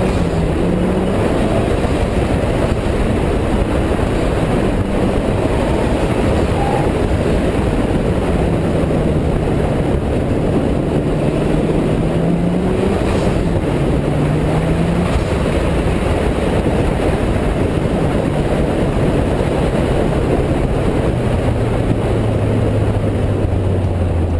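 Mitsubishi Lancer Evolution's turbocharged four-cylinder engine running hard on a rallycross run, its note rising and dipping with throttle and gear changes over a constant rush of wind and tyre noise on loose dirt. Near the end the engine note falls steadily as the car slows.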